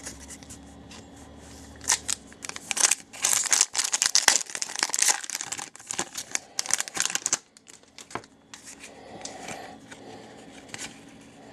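Stack of hockey trading cards being handled and flicked through, card stock sliding and snapping against card. The crisp rustles and clicks come thickest from about two seconds in to past halfway, then thin out.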